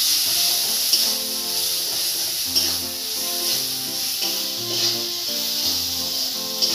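Onion-and-spice masala sizzling in hot oil in a metal kadhai as it is stirred with a spatula, under background music.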